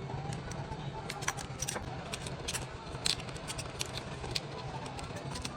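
Irregular sharp clicks and taps of small repair tools working on a smartphone, over a steady low hum.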